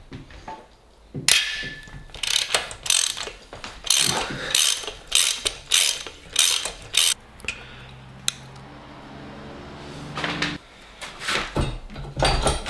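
Hand socket ratchet on a long extension clicking in quick bursts as nuts are undone down inside the cam housing of a 1969 Porsche 911T flat-six engine. A steady low hum fills a pause in the middle, and the clicking comes back near the end.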